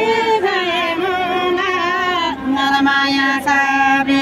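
Women singing a Tamang fapare selo juhari song without instruments, in long, slightly wavering held notes. There is a short break about two seconds in, then one long steady note.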